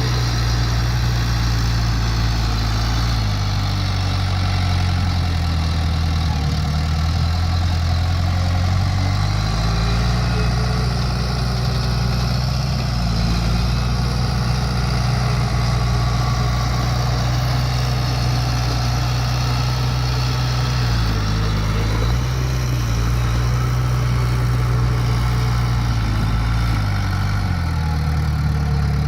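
Bulldozer's diesel engine running steadily, its low pitch dropping and rising several times as the engine speed changes: down about three seconds in, back up near ten seconds, a brief dip around twenty-one to twenty-two seconds, and down again near the end.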